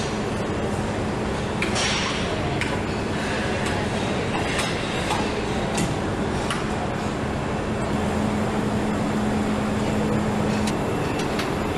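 Assembly-line factory ambience: steady machinery noise with a low hum, scattered metallic clicks and clanks, and a short hiss about two seconds in.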